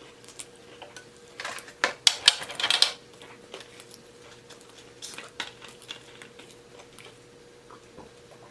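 Close-miked eating of breaded mozzarella sticks: scattered mouth clicks and smacks, with a burst of crackly crunching from about one and a half to three seconds in.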